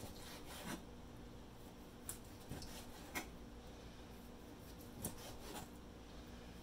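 Chef's knife slicing cod fillets on a plastic cutting board, the blade knocking on the board in about six soft taps, over a faint steady hum.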